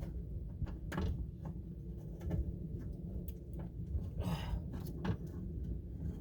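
Scattered light clicks and knocks of hands working on parts inside a car door, with a short scrape about four seconds in, over a low steady rumble.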